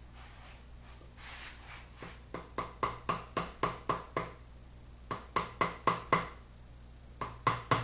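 Mallet tapping a wood chisel that is cutting into a block of wood: light, quick taps, about four a second, in three runs with short pauses between them, starting about two seconds in.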